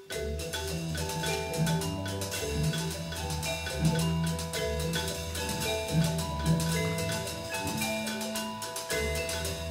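Band music: a bass line, percussion and several melody instruments playing together.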